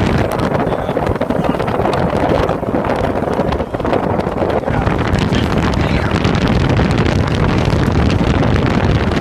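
Vintage trolley car running fast on light-rail track, its wheels rumbling on the rails, with air rushing in at the open front window and buffeting the microphone.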